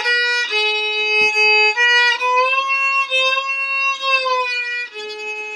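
Fiddle bowed in a slow teaching demonstration: three strokes on the open A string, then a long held note a step higher (first finger on the A string) with a slight upward slide, then back to open A, which rings out near the end.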